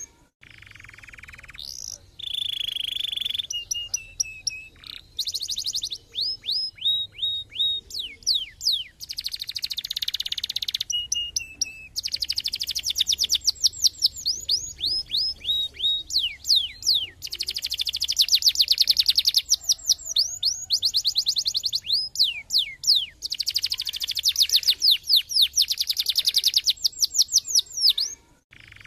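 Domestic canary singing: a long, varied song of fast trills and rapid downward-sweeping whistled notes, in phrases separated by short pauses.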